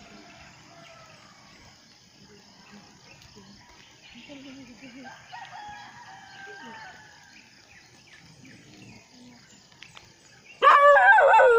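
A rooster crows loudly and close near the end, after several seconds of faint background sounds.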